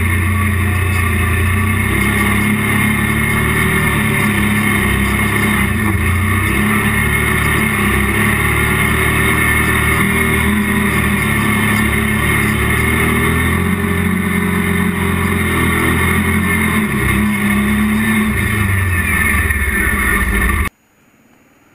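Kawasaki Brute Force ATV engine running at steady revs while the quad drives along, picked up by a camera mounted on its front. The sound cuts off suddenly near the end.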